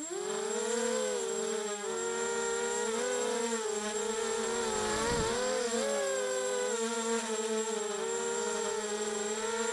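Mini quadcopter's electric motors and propellers whining close to its onboard camera in flight, the pitch rising and falling as the throttle changes.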